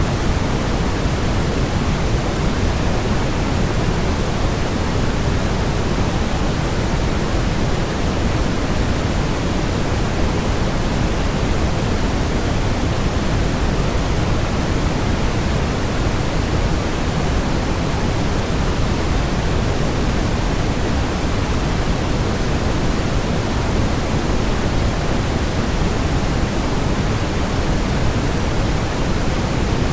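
Steady waterfall white noise: an even, unbroken rush, heavier in the low end and thinning toward the highs, with no change in level.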